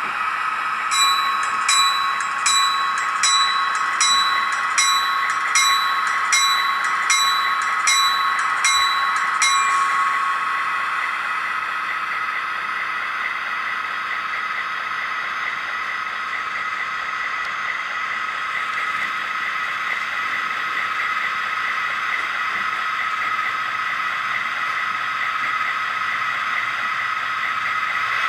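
LokSound v4 DCC sound decoder in an HO scale SD45T-2 model locomotive, playing through the model's small speaker: a locomotive bell rings steadily for about the first ten seconds, then stops, over a steady diesel engine sound that runs on.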